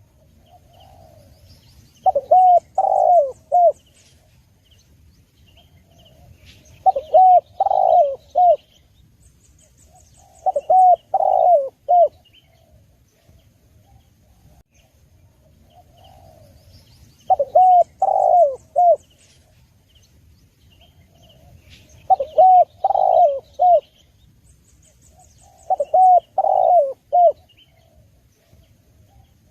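Spotted dove (tekukur) cooing: six phrases, each a short lead note followed by three or four rounded coos, repeated every four to five seconds. Faint chirps and a high trill of small birds sound behind it.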